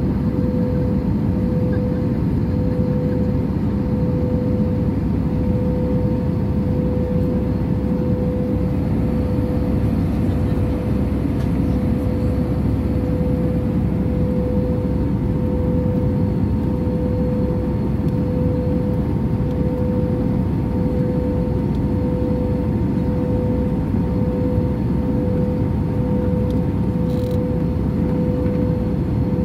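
Airbus A320 passenger cabin noise in flight: the steady roar of the engines and airflow, with a steady droning tone over it.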